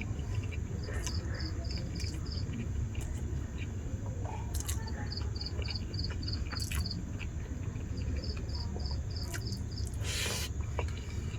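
Insect chirping in three short trains of quick, evenly spaced high pulses, about five a second, over a steady low hum. A few faint clicks are scattered through, and a short noisy burst comes about ten seconds in.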